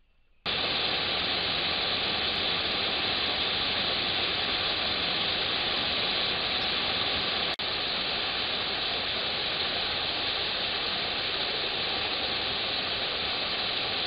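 Steady rushing of a small rocky mountain stream, picked up by a camera trap's microphone, with a brief dropout about halfway through.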